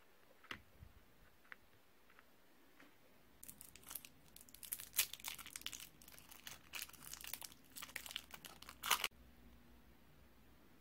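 Pink twist-wrapped soft candy being unwrapped by hand: the wrapper crinkles and crackles in quick bursts for about five seconds, starting about three and a half seconds in and cutting off suddenly about nine seconds in.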